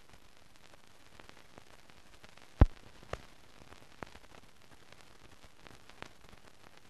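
Faint steady hiss of a blank newsreel soundtrack with scattered clicks and pops; one sharp pop about two and a half seconds in and a smaller one half a second later.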